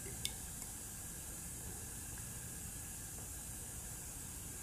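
Steady low hiss of room tone and recording noise, with one faint click about a quarter second in.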